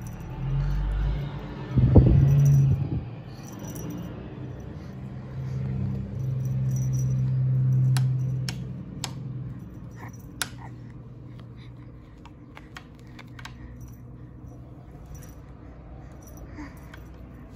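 Cat wand toy rattling and clicking as a kitten bats at it and its streamers, with sharp clicks in the middle stretch. There is a loud low bump about two seconds in and a low hum for a few seconds.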